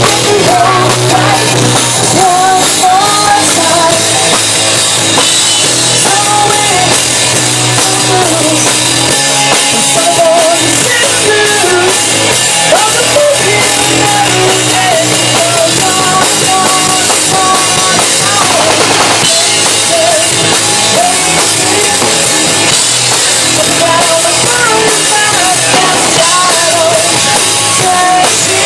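Live rock band playing loud: electric guitar, bass guitar and drum kit, with a woman singing over them.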